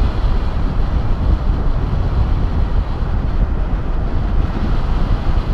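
Steady wind noise from the airflow of paraglider flight buffeting the camera's microphone, heaviest in the low end.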